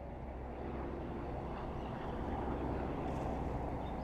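Steady low outdoor background rumble, fading in over about the first second.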